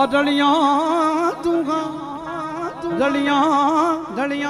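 Male singer drawing out long sung notes with heavy vibrato, sliding up into the first one, in three phrases, over a steady held accompaniment note, amplified through a stage PA.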